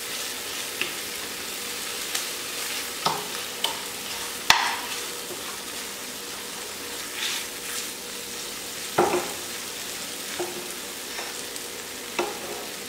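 Mawa (khoya) frying in a nonstick pan with a steady light sizzle, while a steel spoon stirs it, scraping and clinking against the pan every second or two, the loudest knock about four and a half seconds in. The mawa is being cooked only until it softens and melts, not browned.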